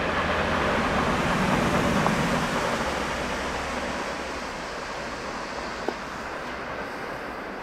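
Tail end of a freight train rolling past on the rails, the wheel rumble fading away into a steady hiss as the last cars leave. A single sharp click comes near the end.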